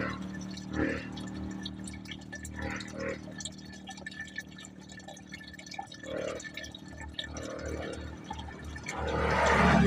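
Water dripping and trickling from a faucet in irregular drops, over a steady low hum, with a louder rush of noise building near the end.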